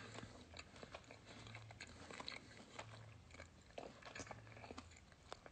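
Faint chewing and biting of food, with small irregular crunchy clicks, from a person eating.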